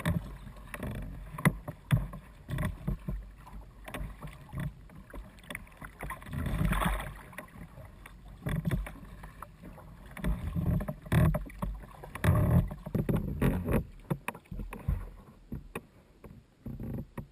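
Kayak on choppy water: irregular sloshing and slapping of waves against the hull close to the deck, with scattered sharp splashes.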